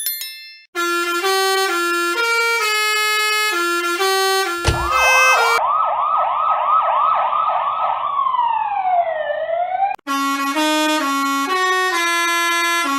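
Edited meme sequence of vehicle horn and siren sounds. First a horn plays a short tune of held notes. About four and a half seconds in, a police car siren takes over with a fast yelp of about three or four sweeps a second, then one slow wail down and back up. A lower-pitched horn tune follows near the end.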